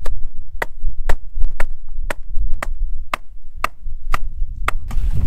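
Hammer driving a wooden stake into the ground: about ten evenly spaced blows, two a second, over a steady low rumble.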